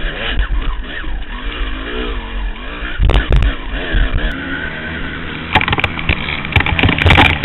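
Two-stroke dirt bike engine revving up and down as it climbs a rocky trail, heard from a helmet camera. Sharp knocks and rattles come as the bike bounces over rocks, once about three seconds in and many times in the last two seconds.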